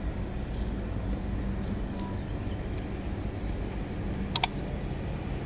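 Steady low outdoor background hum, then two sharp clicks close together about four seconds in, the mouse-click sound effect of a subscribe-button animation.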